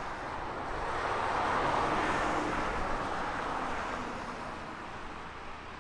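A vehicle passing on the road: its tyre and engine noise swells to a peak about two seconds in, then fades away.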